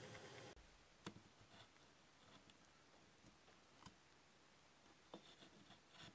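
A metal pick scratching over the cast iron Santa bank's casting, stopping abruptly about half a second in. Then only a few faint, scattered clicks and taps from handling the casting.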